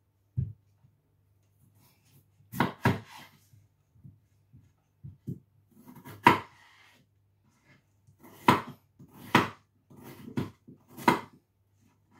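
Kitchen knife cutting raw peeled potatoes on a wooden chopping board. The blade knocks down on the board in separate, unevenly spaced strokes, about eight of them, some in quick pairs.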